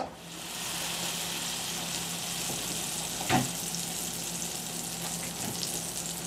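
Butter pats sizzling as they melt in a hot skillet: a steady hiss, with one short knock about three seconds in.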